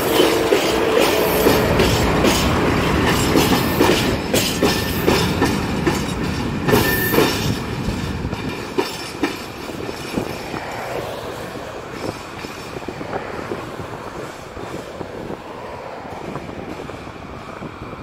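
Freight train passing on the track, its wheels clicking rhythmically over the rail joints, with a brief wheel squeal about seven seconds in. The sound then fades steadily as the train moves away.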